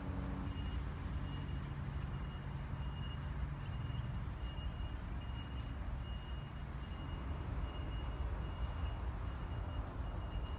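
Reversing alarm on a construction vehicle beeping steadily, about two beeps a second, over a low rumble.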